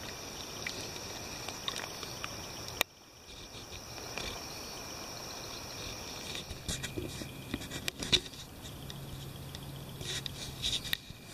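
Night insects, crickets or katydids, trilling in a steady high chorus. In the second half the chorus fades and scattered sharp clicks and taps take over, the loudest about eight seconds in.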